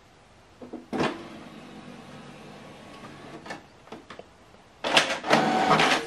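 Canon PIXMA MG2551S inkjet printer starting its printhead alignment. A few clicks about a second in, then a steady mechanical whir; near the end the mechanism runs louder.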